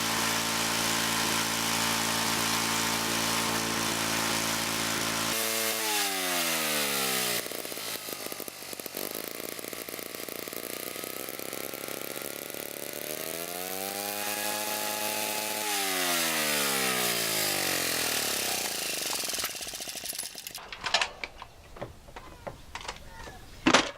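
Wood chipper/shredder's small gasoline engine running steadily and evenly, its carburetor jet screw just backed off a little. About five seconds in the engine speed drops, it picks up briefly around the middle, then winds down and stops, followed by a few sharp clicks.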